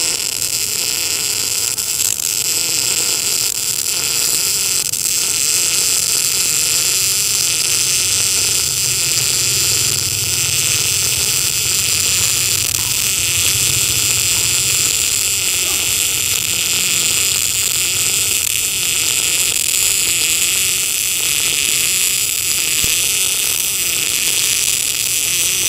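MIG welding arc running steadily as a root bead is pushed along a 4 mm plate: a loud, even hiss.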